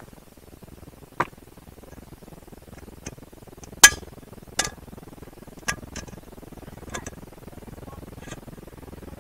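Metal cookware and utensils clinking and knocking as they are handled: about eight sharp, separate clinks spread over several seconds, the loudest near the middle.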